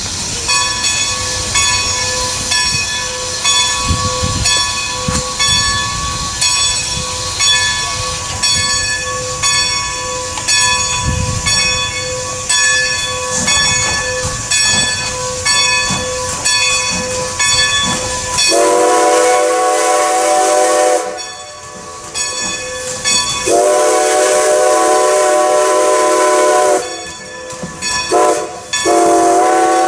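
Strasburg Rail Road No. 90, a 2-10-0 Decapod steam locomotive, working hard with a rapid, steady exhaust beat. Two-thirds of the way in it sounds its steam whistle in the grade-crossing pattern: two long blasts, a short one, then a long one.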